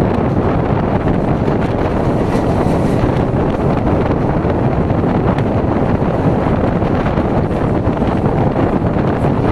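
Steady rush of wind buffeting the microphone over the continuous rumble of an Indian suburban local train running at speed.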